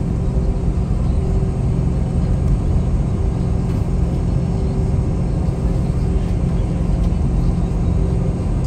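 Rolls-Royce BR715 turbofans of a Boeing 717 at taxi idle, heard inside the cabin as a steady low rumble with a faint hum, as the jet rolls slowly along the taxiway.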